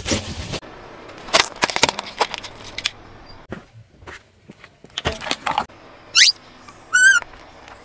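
Small objects crunching and cracking under a slowly rolling car tyre, in three short bursts. Near the end come two high squeaks, one rising quickly and one in short stepped chirps.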